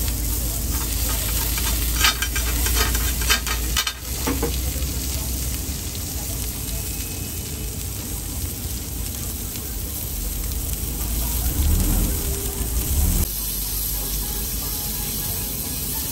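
Slices of pork belly sizzling on a hot griddle, with metal utensils scraping and clicking against the pan as the meat is turned, most often a couple of seconds in.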